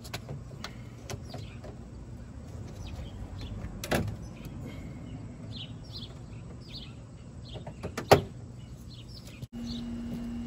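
Handling work on a pickup's front end: a sharp knock about four seconds in and another about eight seconds in, over faint birds chirping and a low steady hum that becomes a steadier hum near the end.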